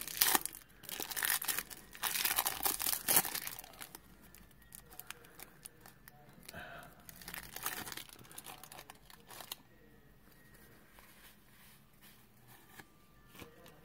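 Wax paper wrapper of a 1991 Topps baseball card pack being torn open, with crackly tearing and crinkling loudest in the first few seconds, then quieter crinkles that die away about ten seconds in.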